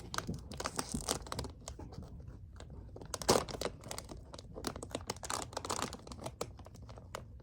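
Toy packaging being picked at and torn by hand: an irregular run of scratching, crinkling and tearing noises, with one louder rip about three seconds in.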